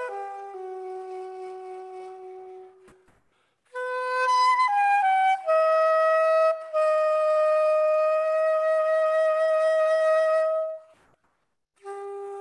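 Soprano saxophone played solo in slow phrases: a held low note that fades away, a pause of about a second, a quick falling run of notes into a long held note, then another pause and a new low note starting near the end.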